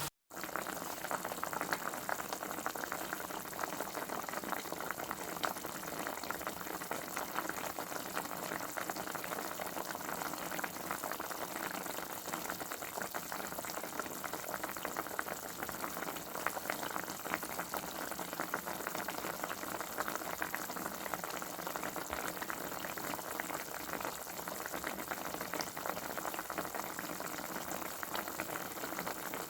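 Liquid boiling in a cooking pot: a steady, dense bubbling that keeps going without change, starting after a brief gap at the very beginning.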